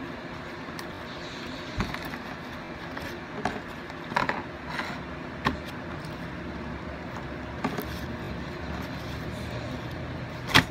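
Slime being squished and worked by hand, with scattered small wet pops and clicks over a steady background noise, and one sharp knock near the end as the slime comes against the recording device.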